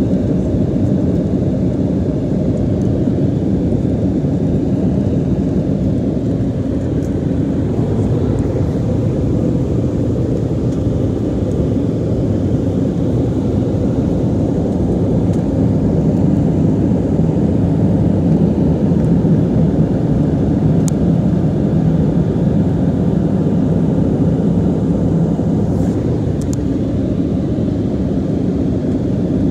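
Steady low rumble of a jet airliner's engines and rushing air, heard inside the cabin during the climb after takeoff.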